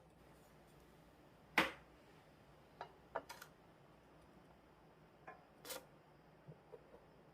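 A few scattered light knocks and clicks, the loudest about a second and a half in, with quieter ones spread through the rest.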